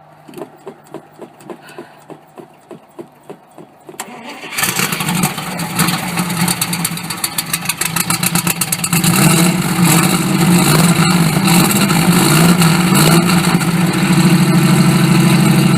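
Dodge pickup engine cranking over on its starter for about four seconds, then catching and running, with a rise in engine speed from about nine seconds in. It is being started on a portable jump pack because the battery is weak.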